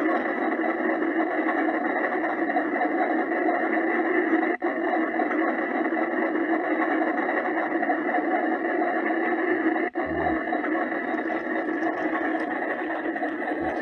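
Steady mechanical running noise, like a small machine or vehicle motor, that briefly cuts out twice. A short low tone sounds about ten seconds in.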